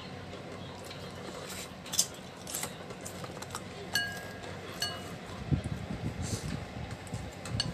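Ceramic soup spoon and metal fork clinking against a ceramic bowl while scooping noodles: a handful of scattered clinks, one about four seconds in ringing briefly.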